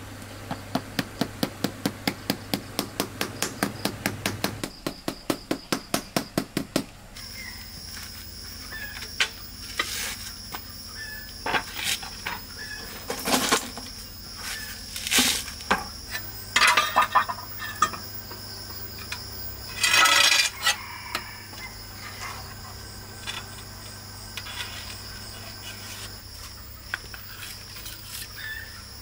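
Rubber mallet tapping a ceramic floor tile down into its mortar bed, about four quick taps a second for roughly seven seconds. After that come scattered knocks, clatters and scrapes of tiling work over steady insects shrilling.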